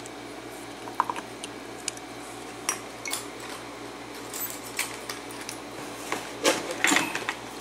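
Small metal tools clicking and scraping against a lock's retaining clip as it is pried at: scattered light metallic taps, with a louder bout of clatter near the end.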